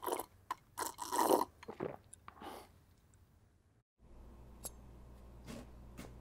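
Loud crunching of someone chewing a crunchy snack, several bites over the first two and a half seconds. After a brief silence, a chef's knife chops carrots on a cutting board, a few sharp chops over a low steady hum.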